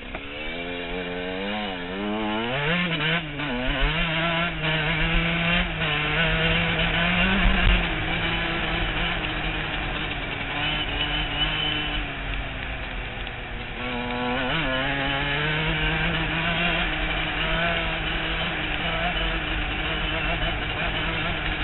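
Dirt bike engine under way, its revs rising and falling with the throttle for the first few seconds, then held fairly steady. It eases off briefly around the middle and then picks up again.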